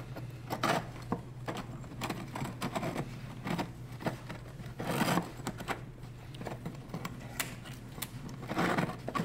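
Irregular light metallic clicks and scrapes as a rusty steel fuel-pump retaining ring is lowered and worked into place over the pump module's flange on top of a fuel tank, over a steady low hum.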